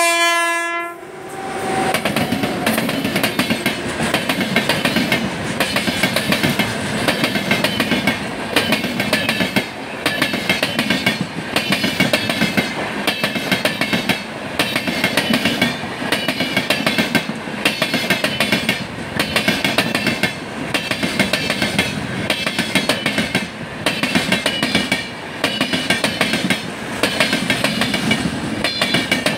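A short locomotive horn blast as the sound opens, then a long express of LHB coaches passing close by. The wheels keep up a steady rumble with a regular clickety-clack ('dhak dhak') over the rail joints.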